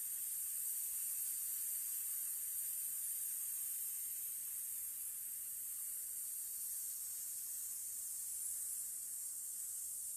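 A woman holding a long, steady voiceless 'sss' hiss through her teeth, easing slightly toward the end. It is a singing breath-support exercise: a slow, even exhale on an S while the rib muscles hold the ribs out.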